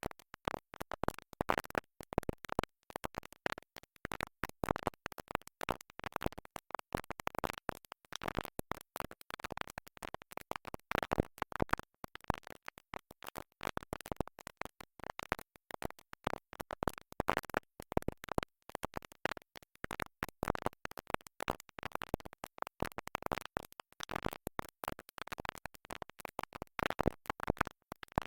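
Vinyl record stuck in a groove, skipping and playing a short, choppy fragment of music over and over with scratchy clicks.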